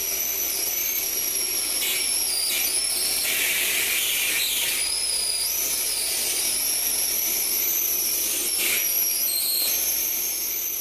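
High-voltage electric arc jumping from a wire to a metal sphere, fed from a capacitor bank charged to about 12 kilovolts through a 2-megohm resistor. It makes a steady high-pitched hiss with thin whistling tones that waver in pitch, broken by a few short crackles.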